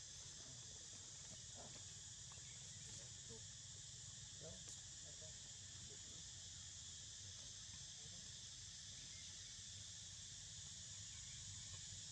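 Faint, steady high-pitched chorus of insects, unbroken, over a low hum.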